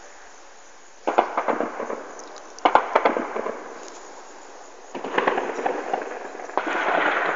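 Automatic gunfire from machine guns in four bursts: about a second in, near three seconds, around five seconds and near the end. Each burst is a rapid string of cracks that echoes and dies away.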